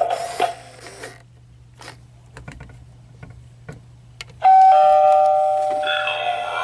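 Gemmy animated eyeball doorbell prop playing an electronic doorbell chime through its small speaker. The chime starts suddenly about four and a half seconds in, with a held first note that slowly fades and a higher second note joining about a second and a half later. Before it there are a few faint clicks.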